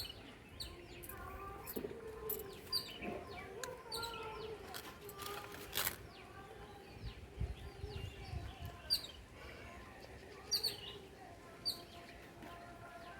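Small birds chirping: short, high, downward-sweeping chirps repeated every second or few seconds, over fainter, lower wavering calls.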